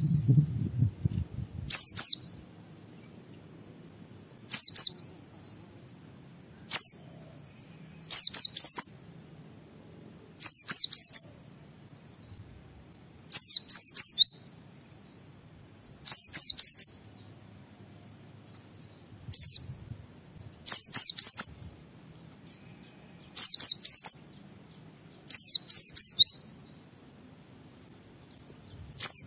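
A white-eye (pleci) singing in short, high phrases of quick falling whistled notes, each phrase under a second to about a second long, repeated every two to three seconds.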